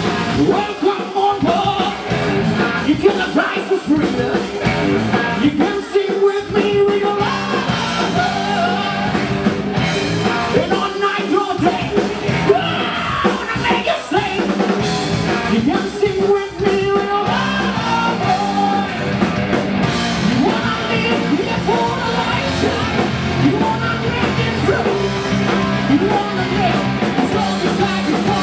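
A live rock band playing: electric guitar and drum kit, with a man singing into a microphone.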